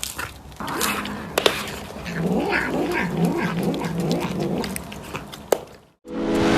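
A cat giving a low, drawn-out yowl that wavers up and down in pitch for several seconds, with two sharp clicks. It cuts off near the end, and music begins.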